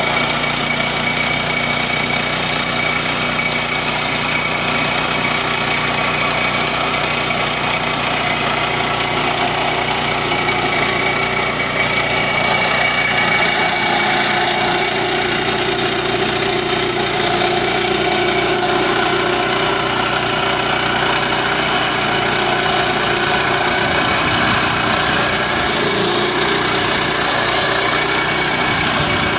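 Woodland Mills HM122 portable bandsaw sawmill running steadily, its small gas engine driving the band blade at an even pitch.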